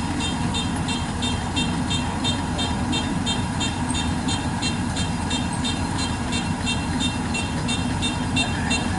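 Kubota DC-93 combine harvester's diesel engine running steadily under load while cutting rice in a flooded paddy, with a quick, regular high clatter from the machine at about four beats a second.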